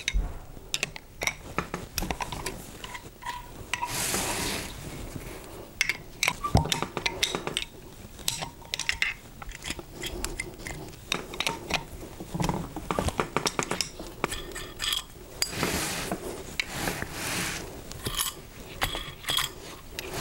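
Open-end spanner clicking and clinking against the metal rotor-housing bolts of a lobe pump as the bolts are loosened and turned out: irregular metal taps and rattles, with a few short rubbing noises.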